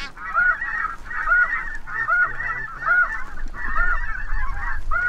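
Snow geese calling: a steady chorus of many overlapping high-pitched honks, with one loud call repeating about once a second over the crowd of fainter ones.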